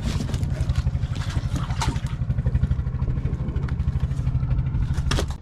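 Boat engine running steadily with a fast, low throb. A few sharp knocks stand out, about two seconds in and near the end.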